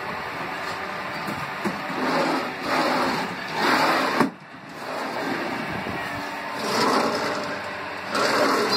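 Glass sliding cabinet doors rolling on the wheels of their aluminium track channel as they are pushed back and forth several times. One slide stops with a knock a little past four seconds in, and another ends with a knock near the end.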